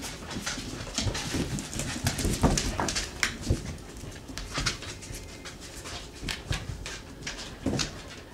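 Six-week-old Samoyed puppies playing on a tile floor: many quick clicks and scrabbles of paws and claws, with a few short puppy vocal sounds, busiest about two to three seconds in.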